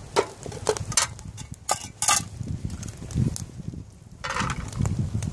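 Metal camp cookware being handled: a pot and lid give a few sharp knocks and clinks in the first two seconds. Near the end there is a short scraping rush as boiled acorn mash is tipped out of the pot into an aluminium mess tin, over a campfire crackling underneath.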